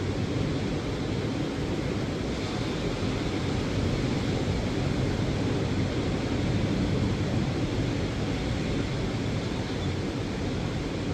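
Steady wind and ocean surf noise during a storm, a low, even rush with no separate claps or crashes.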